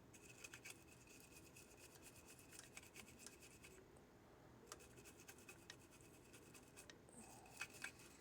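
Faint, quick scratching and rubbing of a brush scrubbing a circuit board, cleaning residue off it before it is coated.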